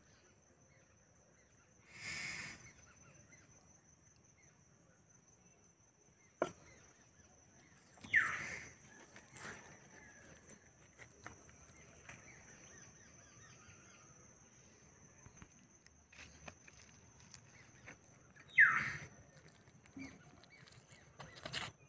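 Outdoor ambience with a steady high-pitched whine. Two loud, short bird calls falling in pitch come about eight and nineteen seconds in, with a few faint clicks between them.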